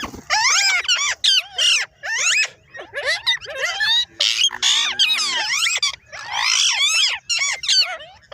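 Parrot calling in a rapid run of harsh, squawking calls, each sliding up and down in pitch, with short gaps between them.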